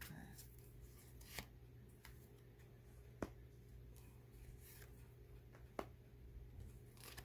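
Tarot cards being drawn from the deck and laid down on a cloth: a few soft, sharp card snaps and taps, about three of them spaced a second or two apart, over a faint steady hum.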